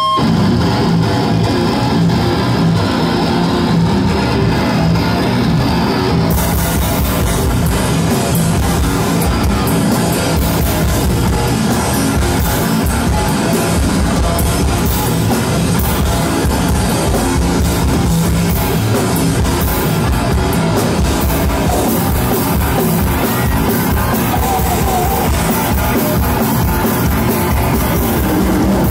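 A live heavy metal band, drum kit and electric guitar, playing a song loudly and without a break.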